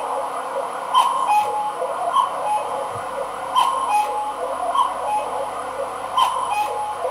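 Pink wooden cuckoo clock calling over and over: each cycle is a pair of sharp mechanism clicks and a two-note cuckoo call, higher then lower, repeating about every two and a half seconds.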